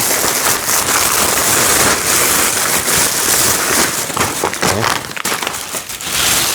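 Plastic bag loudly crinkling and rustling as its contents are pulled out.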